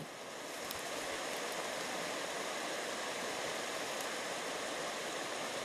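A steady rushing noise with no distinct events, swelling over the first second and then holding even.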